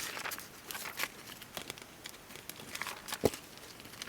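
Magazine paper rustling and crinkling as it is handled, with scattered light clicks and one sharper knock about three seconds in.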